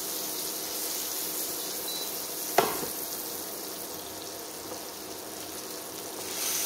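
King oyster mushroom 'scallops' searing in vegan butter in a hot frying pan: a steady sizzle. One sharp knock comes about two and a half seconds in.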